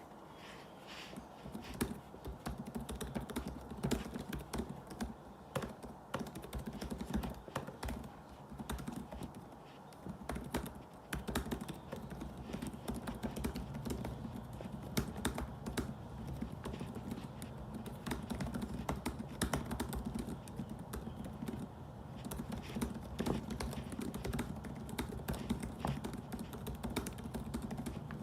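Typing on a laptop keyboard: a quick, continuous patter of light key clicks that thins out briefly about eight to ten seconds in.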